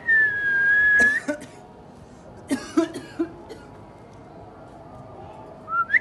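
Alexandrine parakeet whistling one long, level high note for about a second, then giving three short rough calls about halfway through, and a quick rising whistle right at the end.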